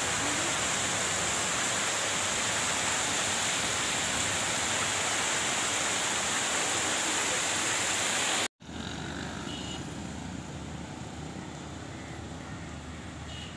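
Floodwater rushing down a street in heavy rain, a loud, steady hiss of water. About eight and a half seconds in it cuts off abruptly and gives way to a quieter, steady wash of traffic on a flooded road.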